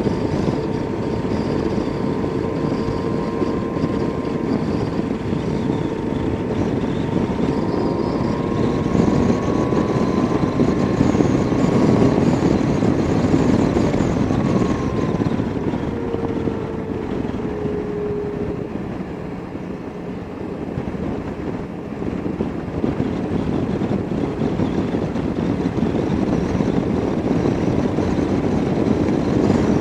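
Motorcycle engine running at cruising speed, heard from the rider's seat with wind rushing over the microphone. The engine's pitch wanders slightly with the throttle, and the sound eases off about two-thirds of the way through before building again.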